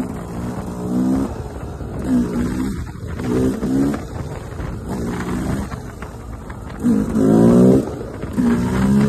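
Two-stroke KTM motorcycle engine being revved in repeated throttle bursts, each rising and falling in pitch, with the longest and loudest about seven seconds in.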